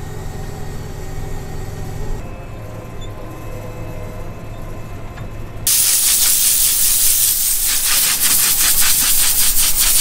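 The steady low hum of a John Deere combine harvester's engine, then, a little over halfway, a sudden loud steady hiss of a compressed-air wand blowing dust out of the header's radiator and cooler cores.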